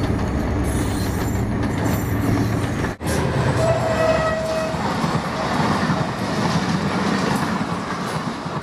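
A Pakistan Railways diesel locomotive passing close by with its engine running steadily. After a sudden cut, coaches roll past with rumbling, clattering wheels on the rails, and a short horn note sounds for about a second near the middle.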